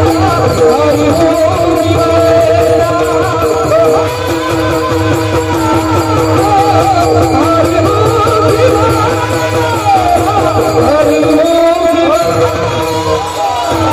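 Chorus of men singing a Marathi devotional abhang in a varkari kirtan, with small hand cymbals (taal) clashing in a fast steady rhythm and a barrel drum keeping the beat underneath.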